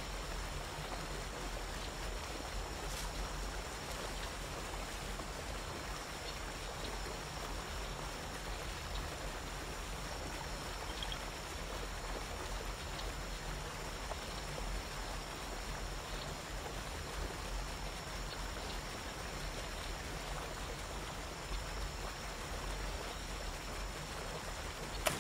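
Waterfall pouring into a pool: a steady, unbroken rush of falling water, with thin steady high tones faintly above it.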